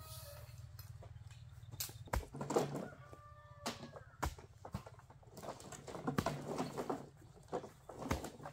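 Chickens clucking now and then, with scattered knocks and scuffing noises, the loudest about two and a half seconds in.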